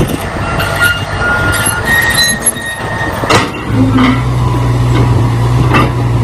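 Caterpillar D10T crawler bulldozer climbing onto a lowboy trailer: its steel tracks squeal and clank. The steady low drone of its diesel engine comes up about four seconds in.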